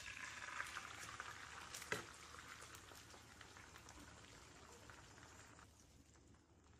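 Egg mixture with sliced potatoes and onions pouring into hot oil in a frying pan, sizzling softly as it hits; the hiss fades and stops about five and a half seconds in. A single sharp click about two seconds in.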